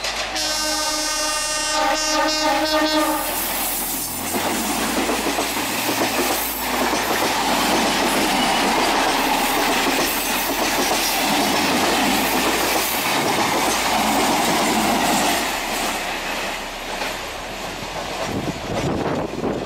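Electric suburban local train (12-car EMU) sounding its horn for about three seconds, then passing close by with its wheels clattering over the rails.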